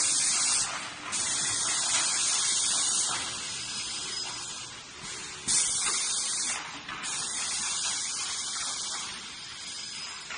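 DB-61/62B semi-automatic plastic thermoforming machine running, its pneumatics letting out long hisses of compressed air that switch on and off in stretches of a second or two, one starting sharply about five and a half seconds in.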